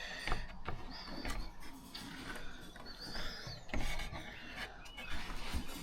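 Scraping and rubbing with a few sharp knocks, and short bird chirps in the background.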